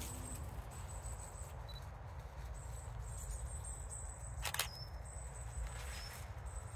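Outdoor woodland ambience: a high, thin, steady trill that comes and goes over a low rumble. There is one sharp click or snap about four and a half seconds in, and a few short faint chirps after it.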